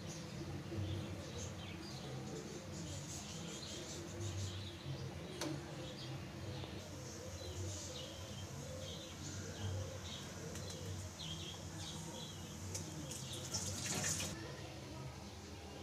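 Small birds chirping faintly and repeatedly over a low, steady hum, with a sharp click about five seconds in and a brief louder rustle near the end.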